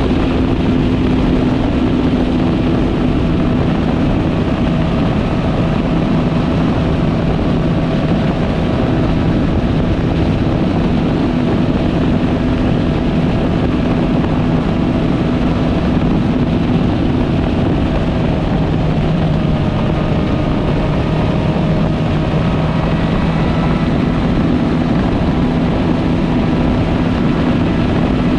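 Four-cylinder sport motorcycle engine running at a steady cruising speed, with wind and road rush over its steady hum.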